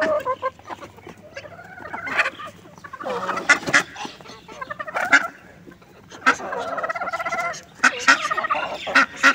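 Mixed flock of chickens, ducks and guinea fowl calling as they feed, many short sharp calls overlapping, with a rapid chattering call late on.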